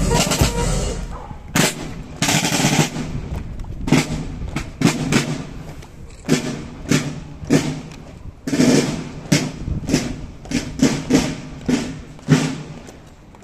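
Military marching drums beating sharp, unevenly spaced strokes, some in quick clusters, each ringing briefly. They fall away near the end.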